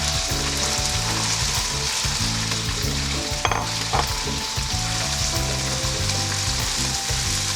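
Stir-fry sizzling steadily in a hot oiled wok holding prawns, chai sim and bean sprouts as it is stirred, with two sharp knocks about halfway through.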